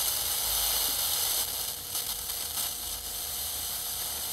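Corona discharge from a failing flyback transformer in a vintage colour tube television as it is powered up on a variac: a steady high hiss with occasional crackles, the sign of the flyback's insulation breaking down.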